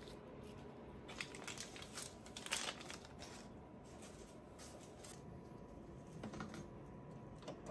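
Faint crinkling of a small clear plastic bag as a plastic PTFE adapter is unwrapped from it, in short bursts, followed near the end by softer handling noises.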